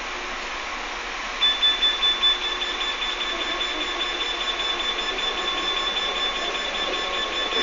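A high-pitched electronic alarm tone starts about a second and a half in, with a few quick pulses, then holds steady, over the even running noise inside a train carriage.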